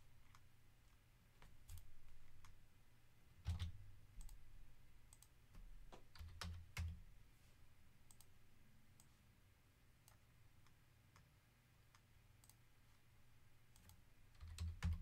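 Faint, scattered computer mouse clicks and keystrokes, a second or so apart, a few of them with a soft low knock on the desk.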